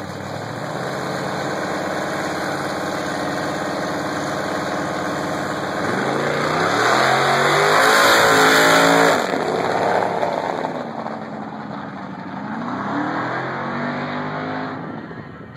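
First-generation Chevrolet Camaro holding at the drag-strip start line, then launching hard about six seconds in. Engine revs climb, drop back at each gear change and climb again, loudest as the car passes and fading as it runs down the track.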